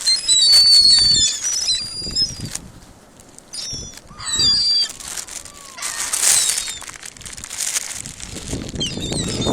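A flock of gulls calling: many short, high cries overlapping. They crowd together at first, thin out after a couple of seconds, then pick up again.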